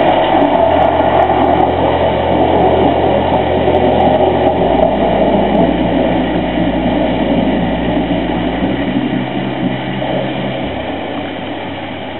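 Stage show soundtrack over the theatre's sound system: a dark ambient passage of steady, engine-like rushing noise over a held low bass drone that shifts to a new pitch twice, slowly fading near the end.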